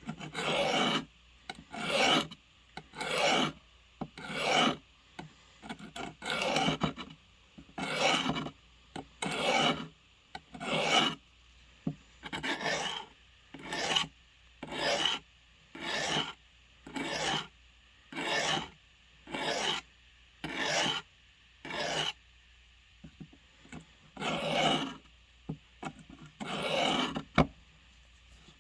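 Blade being sharpened by hand: about twenty slow, even rasping strokes, roughly one a second, with a pause of about two seconds near the end.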